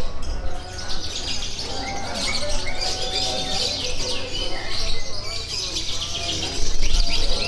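Many caged birds chirping and twittering at once, a dense, unbroken run of quick, high, overlapping chirps.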